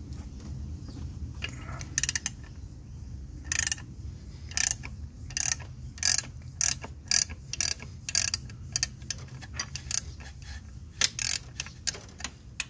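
Ratchet wrench clicking as it is worked back and forth to loosen a bolt on the alternator belt tensioning mechanism, a few scattered clicks at first, then about two sharp clicks a second, over a low steady hum.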